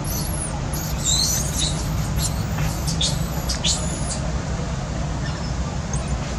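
Infant macaque giving a rapid run of very high-pitched squeals, which stop about four seconds in. These are the distress screams of a baby taken from its mother. A steady low rumble runs underneath.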